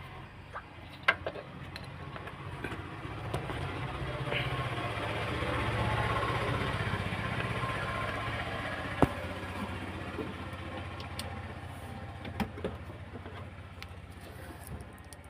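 A motor vehicle passing by, its engine and road noise swelling to a peak midway and then fading, with a few sharp clicks over it.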